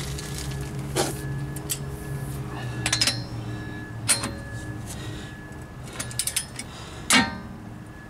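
Metal clinks and clanks of a torque wrench socket going onto a lug nut and the steel holding bar shifting against the lug nuts on an aluminium wheel spacer, a handful of separate knocks with a quick run of clicks about six seconds in. A steady low hum sits underneath.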